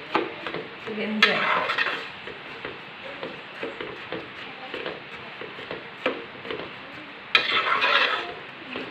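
A metal spoon stirs and scrapes through beaten rice simmering in thick jaggery syrup in an aluminium pot, with repeated small clinks against the pot's side. There is a louder stretch near the end.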